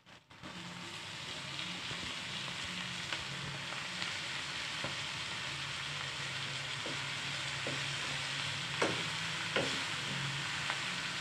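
Fresh fenugreek leaves and potatoes sizzling in a wok as a metal spoon stirs and turns them. The sizzle comes up about half a second in and holds steady, with a few sharper knocks of the spoon near the end.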